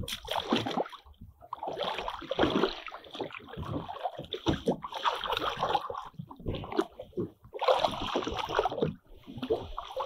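Irregular splashing and sloshing of seawater as a freshly bled fish is held in the sea by hand and worked back and forth alongside a small boat, rinsing the blood out.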